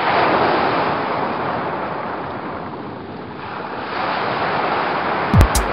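Small Dead Sea waves breaking and washing over shoreline rocks, with wind on the microphone, swelling and ebbing. Near the end an electronic dance track with a heavy kick-drum beat starts.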